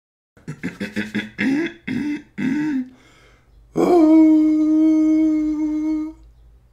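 A man's voice vocalising in an intro: a quick string of short pitched syllables, then one long held note for about two and a half seconds.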